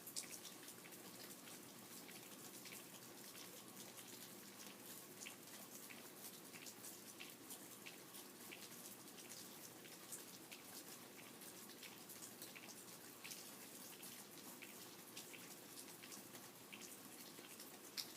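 Faint rain: many separate raindrops landing as irregular soft clicks over a steady light hiss, with one sharper drop near the end.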